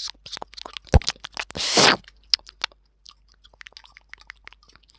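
Close-miked ASMR mouth sounds like eating: wet clicks and smacks, with a sharp knock about a second in and a short breathy rush just before two seconds, then a run of softer clicks.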